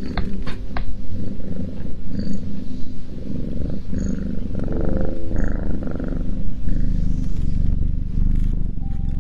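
Domestic cat purring loudly, a continuous low rumble, with a few sharp clicks in the first second.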